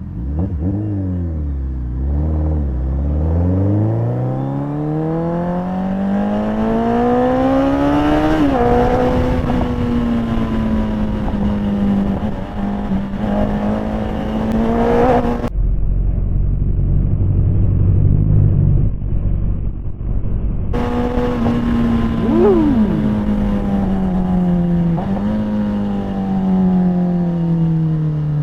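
Suzuki Hayabusa's inline-four engine, heard from the rider's seat, pulling hard with its pitch climbing for several seconds, dropping sharply on an upshift, then running at a fairly steady high pitch before easing off near the end.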